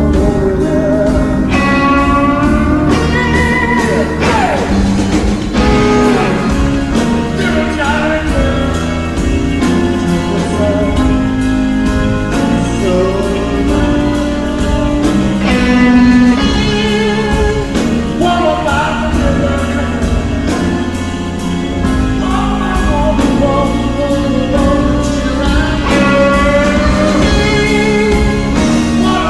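Electric blues band playing at full volume: electric guitar over bass and drums, with a singing lead line.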